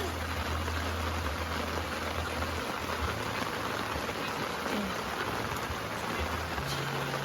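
Steady rain falling, a dense even hiss, with a low rumble underneath for the first few seconds.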